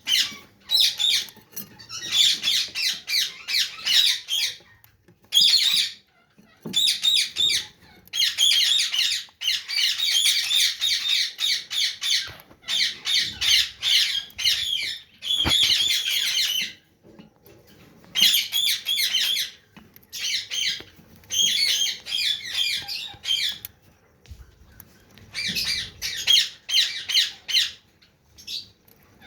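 Pet parrots squawking: harsh, rapidly repeated calls in runs of one to a few seconds, with short pauses between runs.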